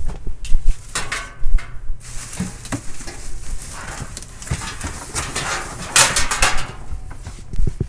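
Rummaging through cardboard boxes and plastic bags: irregular rustling, scraping and small knocks of things being shifted, loudest about a second in and again about six seconds in.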